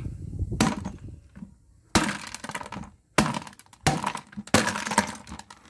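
About six blows smashing plastic electrical connectors to break out their brass inserts, each a sharp impact followed by cracking and clattering of broken pieces. The blows lack the force to break them cleanly, as the speaker puts it: not enough oomph.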